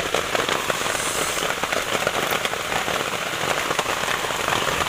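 Steady rain, a dense crackling patter of countless drops.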